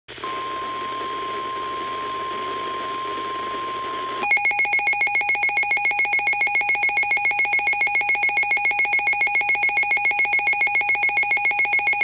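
Midland NOAA weather radio sounding a flash flood warning alert: a steady single-pitch alarm tone over broadcast hiss for about four seconds, then a loud pulsing multi-tone warning alarm at about six beeps a second.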